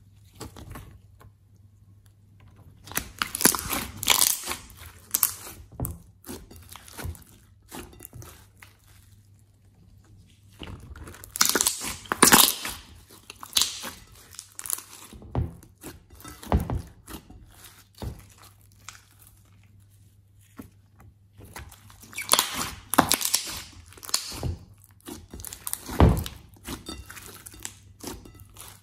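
Thick slime being squeezed and kneaded by hand, giving wet crackling and popping squelches in three bursts. In between, a few soft, low squelching thuds as the mass is pressed and folded.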